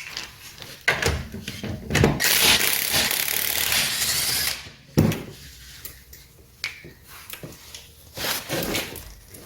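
Impact wrench hammering at a tight lug nut for about two and a half seconds, with knocks of tools and parts before and after.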